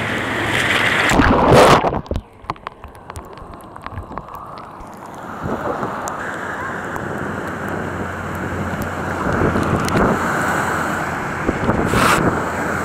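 Small surf washing through the shallows, with wind buffeting the microphone. About a second in there is a loud rush of water, then a few seconds of muffled sound with faint clicks before the surf noise comes back; another brief loud rush comes near the end.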